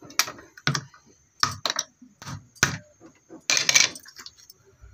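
Coconut flesh being pried out of a flame-charred shell by hand: a run of irregular sharp cracks and snaps as the shell breaks away, with a longer scraping crackle about three and a half seconds in. The charring has loosened the flesh so it comes away from the shell.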